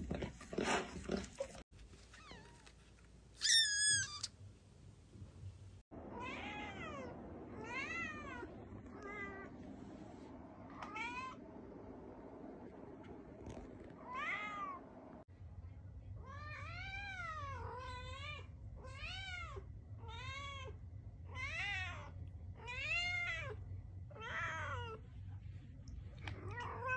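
Kitten meowing over and over, each meow a short call that rises and falls, about one a second. A louder, higher cry comes a few seconds in.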